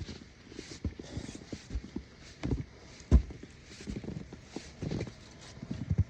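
Footsteps in snow: a series of soft thumps, roughly one a second, the loudest about three seconds in.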